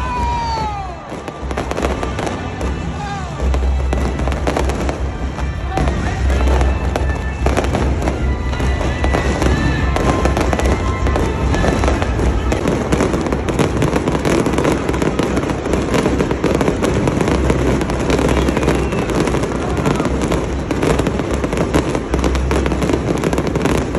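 Aerial fireworks going off overhead: falling whistles near the start, then continuous crackling and bangs that grow denser from about three and a half seconds in, with music playing underneath.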